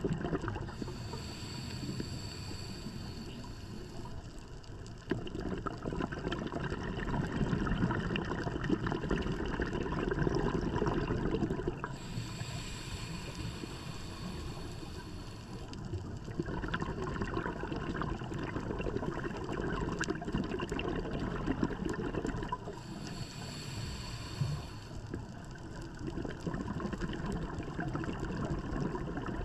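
Scuba diver breathing through a regulator. Three inhalations hiss for a few seconds each, and each is followed by a longer stretch of exhaled bubbles gurgling, about one breath every eleven seconds.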